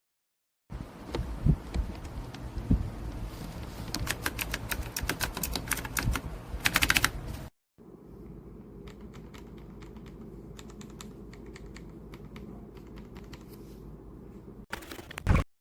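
Typing on a mechanical keyboard fitted with ABS cat-paw keycaps: a run of key clacks with a fast flurry near the middle, then after a brief cut a quieter stretch of typing, and a short loud flurry near the end.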